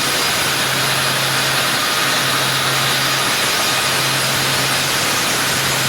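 Sawmill machinery running steadily: an even, loud rush of noise over a low hum, which drops out briefly about halfway through.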